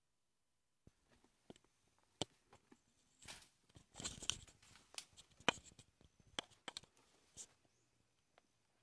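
Leaves and twigs rustling and snapping close by, a scatter of sharp cracks starting about a second in, with a louder stretch of rustling in the middle.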